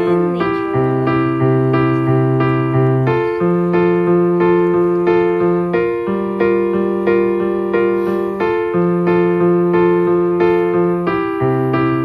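Background music: piano, with an electric-piano sound, playing chords in a steady pulse of repeated notes, the bass changing every couple of seconds.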